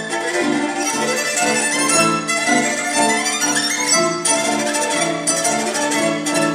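Solo violin playing a melody over orchestra accompaniment, with quick rising runs about two-thirds of the way through.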